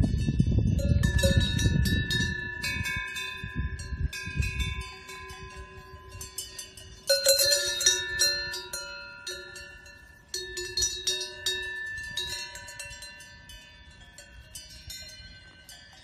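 Cowbells on grazing cows clanging irregularly, several bells ringing at different pitches, with louder bursts of clangs about seven seconds in and again about ten seconds in. A low rumble lies under the first few seconds.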